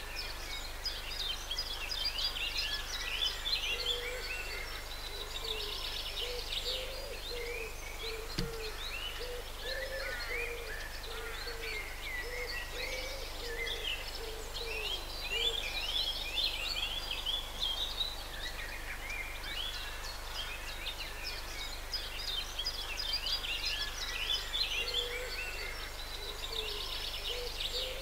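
Many songbirds singing at once, a dense mix of chirps and trills, with a low bird call hooting over and over beneath them for long stretches.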